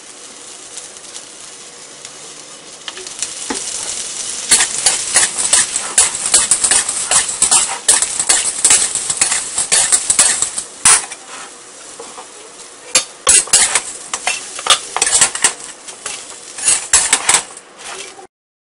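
A metal spatula scraping and clanking against a steel wok as fried chicken wings are tossed in it, over a soft sizzle. A few seconds of quiet hiss come first, then rapid scraping strokes for several seconds, a lull, and more scraping near the end as the wings are scooped out.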